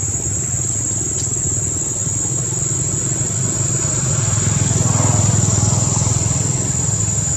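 A motor vehicle engine running steadily and growing louder about four to five seconds in, over a steady high-pitched tone.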